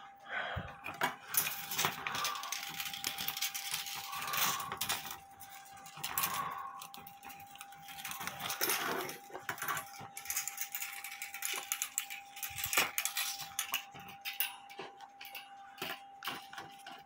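A steel clock mainspring being handled and worked by hand: irregular metallic clinks, rattles and scrapes.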